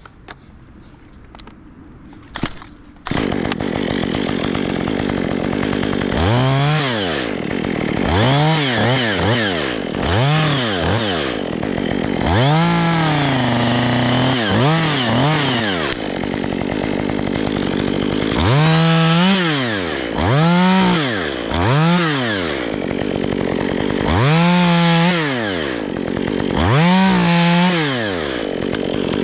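Chainsaw starts running about three seconds in, then is revved up and down again and again, rising and falling in pitch about ten times, with several longer holds at high revs.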